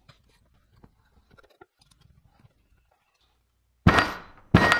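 Faint handling clicks, then two hard blows on a slip-on motorcycle muffler to drive out its stuck baffle, each with a metallic ring.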